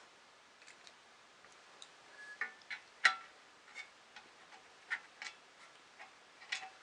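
Small metal parts and tools clicking and clinking during hand assembly of a 3D printer kit's X-axis: irregular light taps, a few with a brief metallic ring, the loudest about three seconds in.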